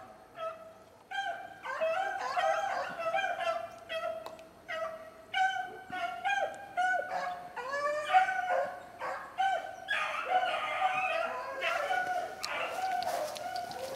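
A pack of rabbit dogs baying and yelping on a rabbit's trail, several voices overlapping, as they run the rabbit. The calls start about a second in and crowd together more densely near the end.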